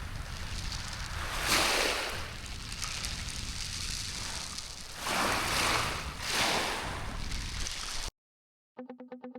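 Small waves washing onto a shingle beach, a steady wash with two louder surges of surf, the first about a second and a half in and the second about five seconds in; it cuts off abruptly near the end.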